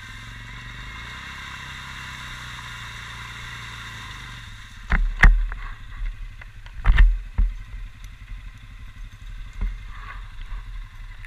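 Quad bike (ATV) engine running steadily, then a series of loud thumps and knocks from about five seconds in.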